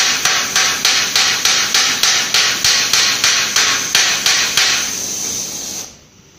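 Hand hammer striking a hot 10 mm steel rivet tail, peening it flush into a countersunk hole, at about three blows a second over the steady hiss of a gas torch flame. The hammering stops a little under five seconds in, and the torch hiss cuts off about a second later.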